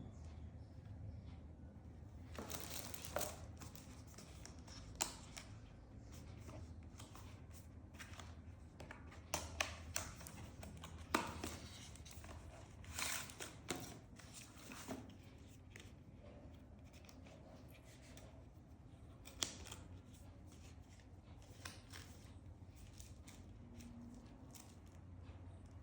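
Packaging being handled and opened: irregular crinkling and tearing rustles broken by several sharp clicks, over a faint low hum.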